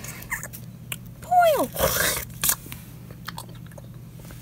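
Plush toys being handled and moved about, giving short rustling and crunchy noises, with a voice making one short falling vocal sound about a second and a half in.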